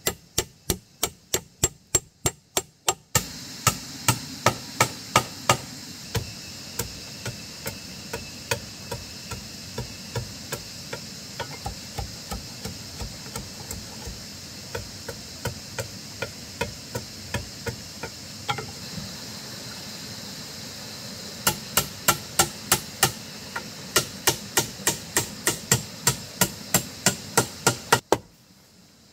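Hammer blows struck in quick runs of about three or four a second, with a short pause about two-thirds of the way through.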